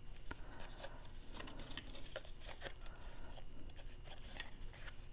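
Faint rustling and small scattered clicks of twine and a cardstock box being handled while a bow is tied.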